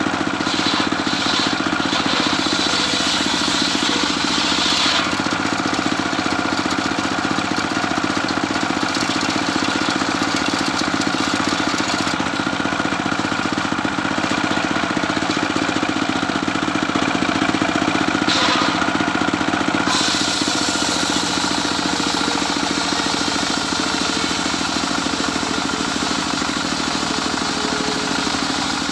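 A homemade circular sawmill running: its drive engine drones steadily while the large circular blade rips lengthwise through a long board of medang kuning timber. The cutting noise on top of the engine shifts several times as the board is fed through.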